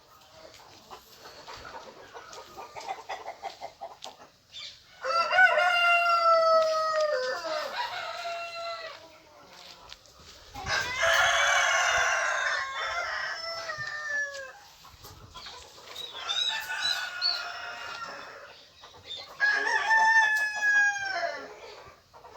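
Roosters crowing, several long crows that fall in pitch at the end, about five, eleven and twenty seconds in, the middle one loudest with several birds at once. Hens clucking softly between the crows.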